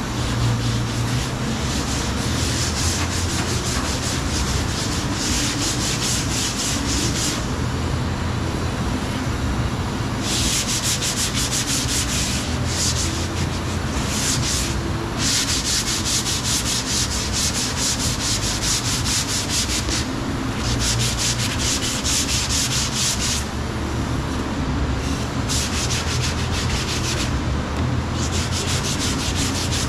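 Sanding body filler (Bondo) on a car quarter panel: a continuous rough scraping hiss that brightens in spells of a second or more and drops back between them, over a low steady hum.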